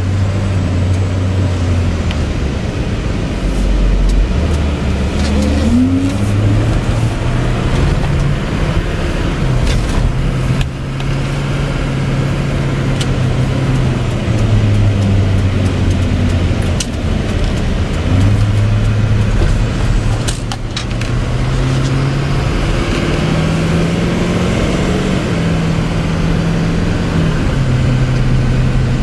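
6.6-litre Duramax turbo-diesel V8 of a 2004 Chevy C5500 truck pulling away and accelerating. Its note climbs, then drops back at each gear change, several times over.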